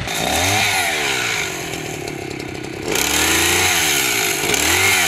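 Husqvarna two-stroke chainsaw trimming spruce branches, revved hard in three bursts with rising and falling pitch and dropping back to a lower speed between them, about a second and a half in and again just before three seconds.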